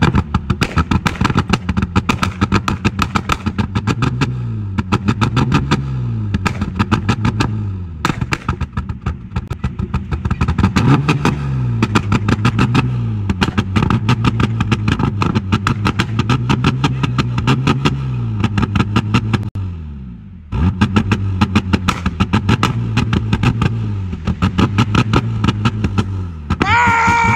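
A Holden VX Commodore's exhaust bangs and crackles in rapid volleys as the engine is revved up and down every couple of seconds. The bangs come from key banging: the ignition is switched off and on while revving, so unburnt fuel ignites in the exhaust and shoots flames from the tailpipe.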